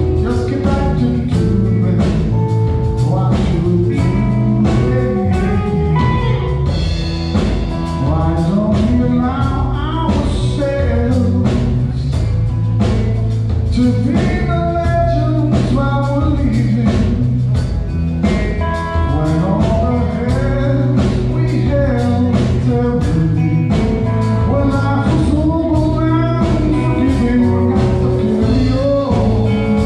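Live rock band playing a song: a man singing over electric guitar, bass guitar and a drum kit with a steady beat.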